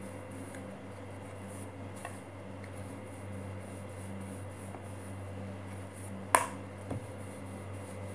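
Wooden rolling pin rolling out dough on a wooden board, with faint ticks and a steady low hum behind. One sharp knock comes about six seconds in.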